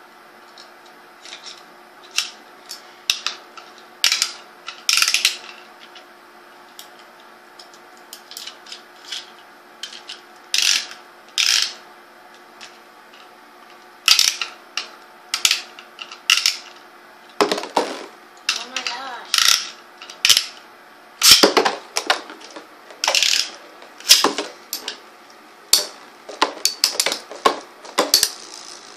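Plastic clicking, rattling and ratcheting of Beyblade spinning tops and their ripcord launchers being handled and readied. The clicks come faster and stronger in the second half, and near the end the tops clatter as they spin in a plastic stadium.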